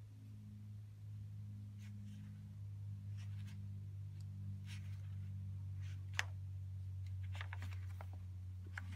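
Watercolour brush working on paper and then in a paint palette's mixing well: faint short scratches and clicks, a sharper click about six seconds in and a quick run of them near the end. A steady low hum lies under it.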